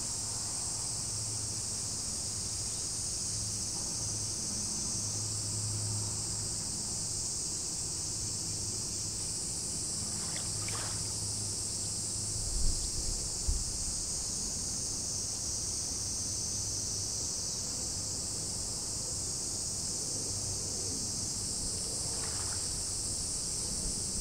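Steady high-pitched chorus of insects, with a low hum beneath it and two short low thumps about halfway through.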